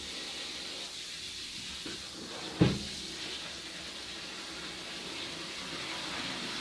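Laundry being washed by hand in a basin: a steady hiss with a single sharp knock about two and a half seconds in.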